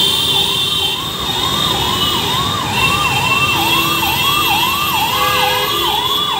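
Electronic siren in a fast yelp, each rising sweep cut off and restarted about three times a second, over the din of heavy, slow-moving road traffic with car horns sounding now and then.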